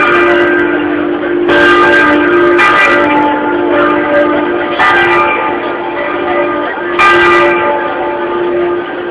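Church bells swung a slancio in a bell tower. About four unevenly spaced clapper strokes, each leaving a long ringing hum that carries on between the strokes.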